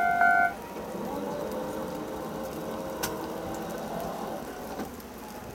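Japanese level crossing warning bell pulsing about twice a second, cutting off suddenly about half a second in. A faint mechanical whir with two short clicks follows as the crossing barriers lift.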